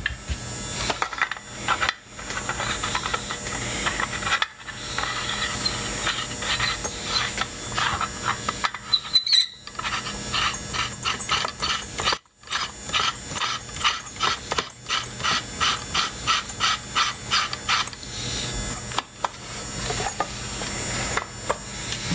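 Hands twisting and screwing the fan cap of an H4 LED headlight bulb into place on the back of a headlight housing. The threads and parts make a rhythmic run of rasping, scraping clicks, about three a second at their steadiest.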